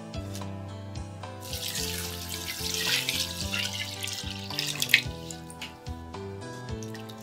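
Water poured over dried gourd strips (kanpyo) in a stainless mesh strainer, splashing and draining for about four seconds from a second and a half in, as a quick rinse. A sharp clink near the end of the pour, over gentle background music.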